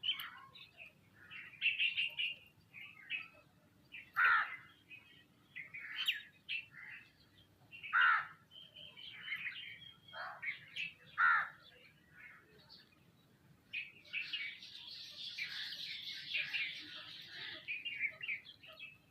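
Sparrows and mynas chirping and calling: separate sharp chirps, several falling in pitch, then a dense stretch of chattering from about two-thirds of the way in.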